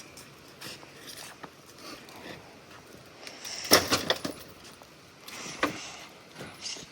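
Scattered clinks and knocks of metal being handled, with a loud cluster of clanks a little past halfway and another sharp knock soon after.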